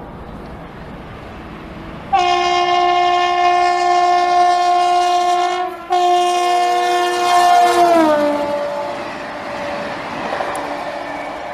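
An electric locomotive's horn sounds two long blasts as it approaches at speed. The second blast drops in pitch as the locomotive passes, and the rushing noise of the coaches going by follows.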